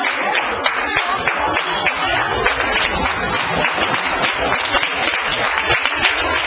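A crowd of spectators clapping and applauding, a steady dense patter of many hands with sharp individual claps standing out.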